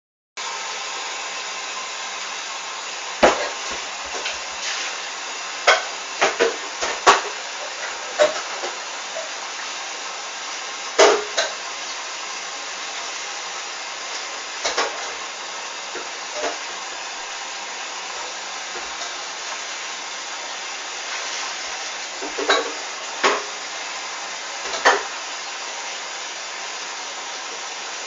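Hoover DYN 8144 D washing machine running, a steady hiss with irregular sharp knocks and clatters scattered through it, a few close together.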